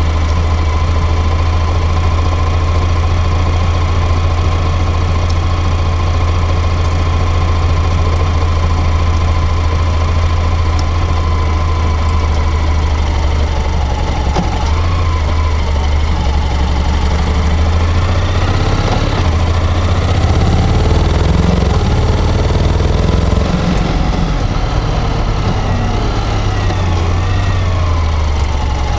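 Honda X-ADV 750 motorcycle running at low road speed, picked up by a microphone in the front fork tunnel: a low engine hum with a thin whine above it that the owner puts down to the transmission. About halfway through, the whine starts to waver up and down in pitch.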